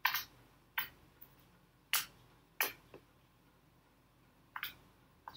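Foaming white slime squished and pressed by hand, giving short crackly pops and squelches about seven times at uneven intervals as air bubbles in it burst.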